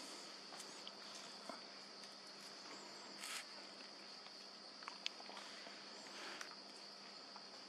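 Faint, steady high-pitched drone of forest insects, with scattered light clicks and leaf rustles, the loudest rustle about three seconds in.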